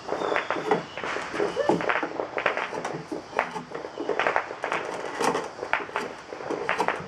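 Draw knife shaving green black locust wood: a series of short scraping strokes, roughly one to two a second, as light finishing cuts are taken off a hatchet handle blank.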